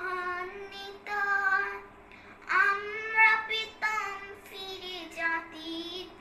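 A young girl singing a Bengali song without accompaniment, in long held phrases that slide in pitch, with short pauses for breath between them.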